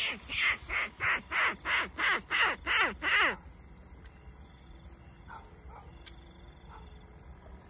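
Rat-luring call blown by mouth, imitating rat squeals: a quick, even run of squeaks, each falling sharply in pitch, about three a second. It stops abruptly about three seconds in.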